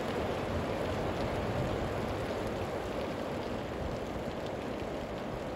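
Very heavy rain falling steadily on open farmland, an even hiss of the downpour.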